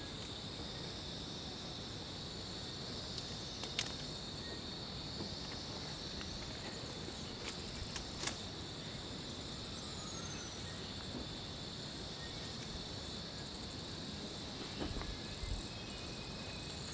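Insects droning steadily in a continuous high-pitched chorus, with a few faint clicks and a couple of soft thumps near the end.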